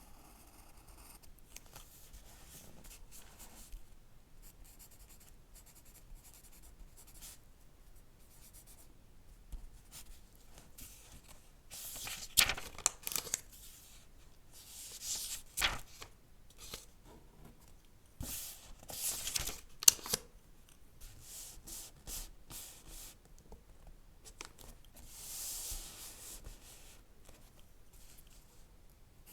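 Book pages being handled and turned: irregular crisp paper rustles and swishes, with a few sharp snaps in the middle.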